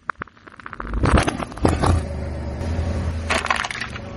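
Objects being crushed under a car tyre: a run of quick crackles, then loud crunching about a second in and again past three seconds, over the car's steady low rumble.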